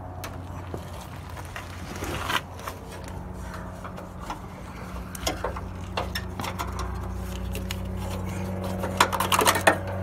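Scattered plastic clicks and knocks as a trailer wiring harness's connector and corrugated wire loom are handled and fed up through a pickup's taillight cavity, with a quick run of sharp clicks near the end. A steady low hum runs underneath.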